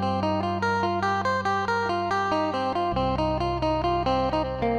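Background music: a quick run of plucked notes over a held bass note that shifts pitch about three seconds in.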